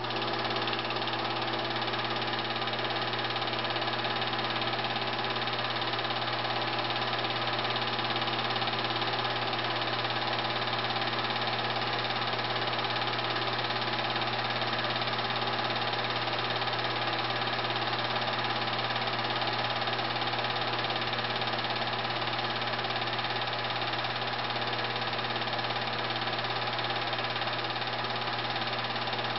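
Movie film projector starting up and then running steadily: a constant mechanical hum made of many even tones, strongest low down.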